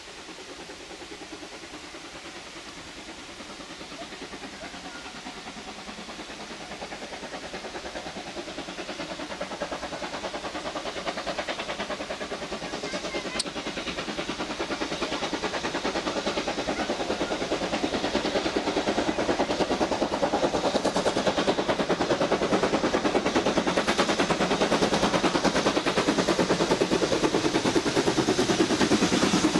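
BR Standard 9F 2-10-0 steam locomotive under way, its exhaust beats coming fast and close together. The sound grows steadily louder from faint to loud as the engine approaches and draws level.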